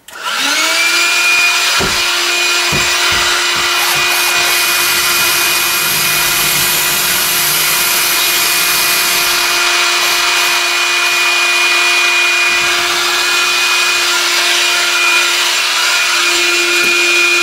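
Vacuum cleaner switched on, spinning up to a steady hum within the first half-second. For several seconds in the middle, a cordless drill bores a pilot hole for a lag bolt into a wooden wall stud over the vacuum's hum.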